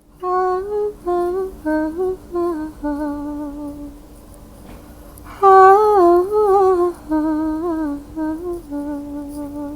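A woman humming a slow, wordless improvised melody in short stepping notes over a steady held low note; the loudest phrase, with gently wavering pitch, comes about halfway through.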